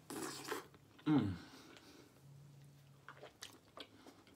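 Close-up mouth sounds of eating a smoked turkey leg: a bite tearing into the meat at the start, then a low 'mm' of enjoyment falling in pitch, a held hum, and wet chewing with small smacks near the end.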